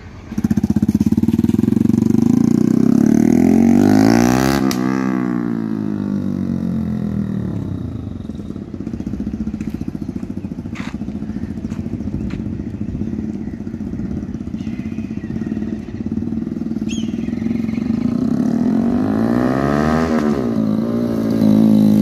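Yamaha MT-15's single-cylinder engine running through an aftermarket SC-Project exhaust as the bike is ridden past. It is loudest as it passes close about four seconds in, and again as it comes back near the end.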